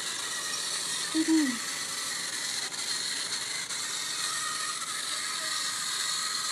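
Battery-powered toy train engine running along wooden track, its small motor and gears giving a steady whir. A short voice sound comes about a second in.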